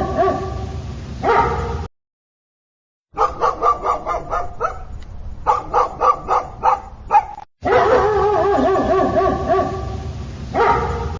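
Dogs barking and yipping in short spliced clips. A stretch of quick repeated barks sits between stretches of wavering, drawn-out cries, with abrupt silent cuts between them.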